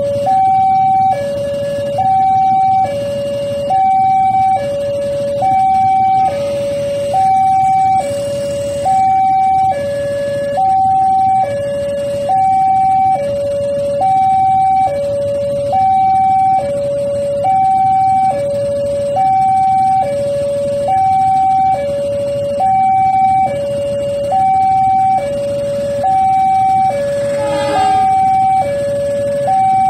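Railway level-crossing warning alarm sounding a steady two-tone hi-lo signal, each tone held about a second, over a low background rumble: the crossing is closed for an approaching train.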